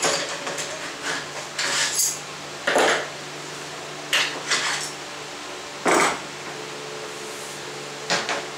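Aluminium track-saw guide rail being handled on a plywood sheet: about half a dozen separate clanks, knocks and scrapes as it is slid, shifted and set down, some of them quick double knocks.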